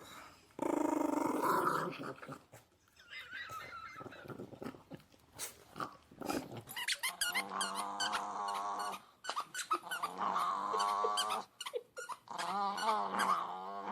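Chihuahua growling, in three long stretches in the second half, with shorter snarls and sharp snaps before them.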